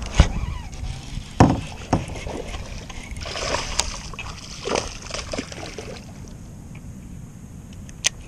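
Water splashing and sloshing against a Lifetime Tamarack Angler plastic kayak as it is paddled, with several hard knocks of gear against the hull in the first two seconds. A single sharp click comes near the end.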